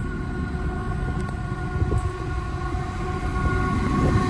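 Aurizon coal train's diesel locomotives approaching, the engines' low rumble slowly growing louder, with the horn held as a long steady chord of several notes over it.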